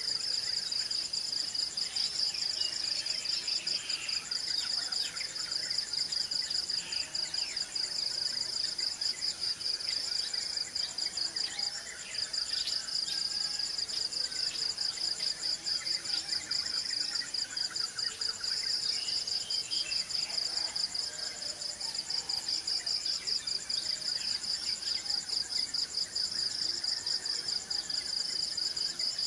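Insects trilling in a steady, fast-pulsing, high-pitched chorus, with scattered short bird chirps.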